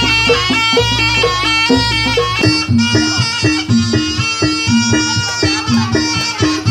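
Javanese jaranan music: a reedy, nasal shawm (slompret) melody over a repeating percussion pattern. About two and a half seconds in, the held low drone gives way to quick repeated low notes.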